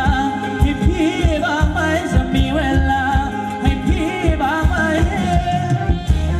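Live Thai ramwong dance music played loud through a PA: a singer's wavering melody over a steady drum beat.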